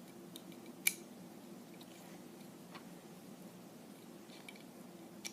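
Plastic Lego bricks being handled and pressed together: a few small, sharp clicks, the loudest about a second in, over a faint steady hum.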